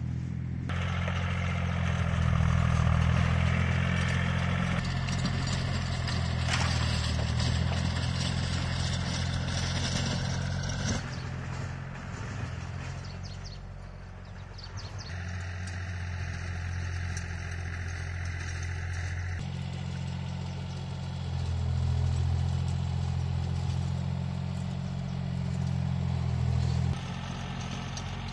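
Small farm tractor's engine running steadily with a deep hum, its level jumping up and down abruptly several times.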